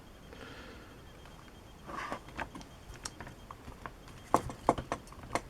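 Vinyl model kit parts being handled: light rustling, then scattered sharp clicks and taps, most of them in the second half.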